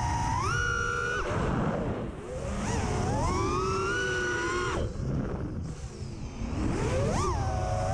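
Racing miniquad's T-Motor F40 2400 kV brushless motors and propellers whining, the pitch rising and falling with throttle and dropping off sharply twice, over a low rumble.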